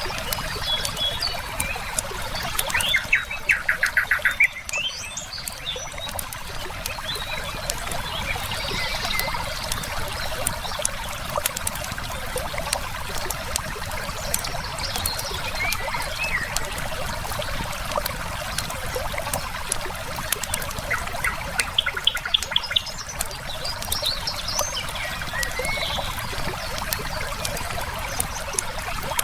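Steady flowing river water with a firepit crackling in small scattered pops, and birdsong over it. A bird gives a rapid run of repeated notes a few seconds in and again about two-thirds of the way through; these are the loudest sounds, with short chirps in between.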